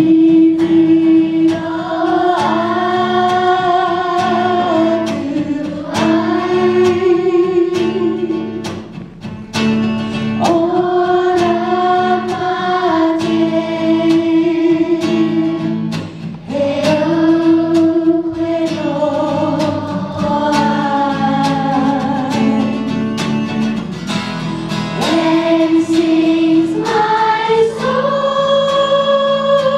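A children's choir singing to acoustic guitar accompaniment, in long held phrases of several seconds with short breaks between them.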